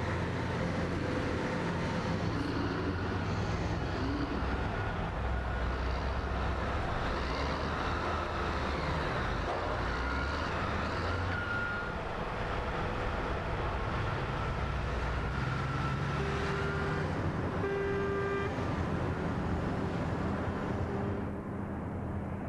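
Diesel engines of large Caterpillar mining haul trucks running and driving, a steady low drone. Two short beeps sound about sixteen and eighteen seconds in, and the sound thins out near the end.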